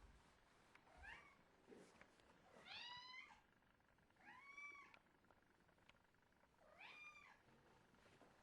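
A domestic cat giving faint, high-pitched squeaky meows: four separate calls, each rising and then falling in pitch, spaced about one and a half to two seconds apart. The first call is short.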